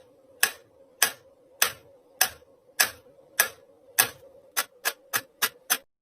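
A run of sharp, evenly spaced ticks, about one every 0.6 seconds, quickening to roughly three a second near the end, over a faint steady hum; the ticks then stop abruptly.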